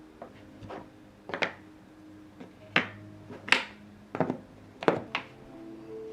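A series of sharp knocks and clacks, about six in all, spaced irregularly, as hard objects are handled and set down.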